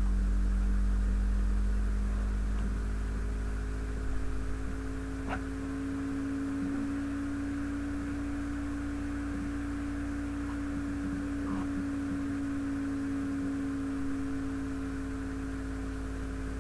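Steady electrical hum with a faint hiss. A few soft, brief taps and rustles come from sandals being slipped onto the feet, the clearest about four seconds in.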